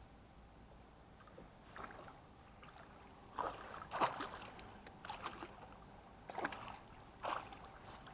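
Hooked pike splashing and thrashing at the surface beside a small boat: about six short, sharp splashes starting about two seconds in, the loudest about four seconds in.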